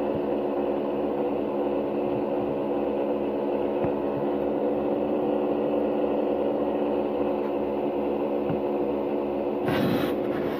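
Egg incubator's fan running with a steady hum of several constant tones. A brief rustling rush near the end.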